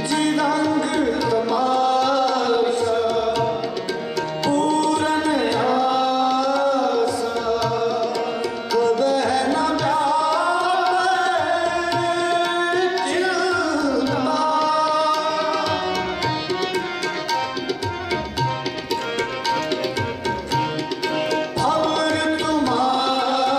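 Sikh kirtan: men's voices singing a devotional hymn over a held harmonium, with tabla keeping a steady rhythm underneath.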